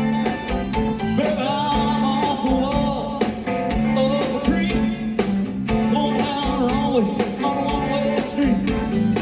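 Live rock band playing with drums, guitar and keyboards, and a singing voice coming in over the band about a second in.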